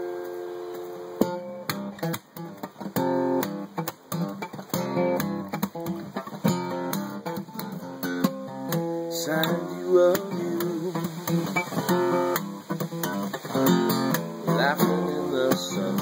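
Acoustic guitar playing a song's intro. A held chord rings and fades at the start, then picked notes and strummed chords come in from about a second in.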